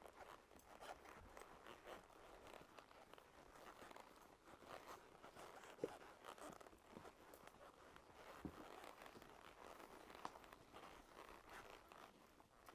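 Horses walking on a wooded trail: faint, irregular crunching hoof steps, with a sharper click about six seconds in.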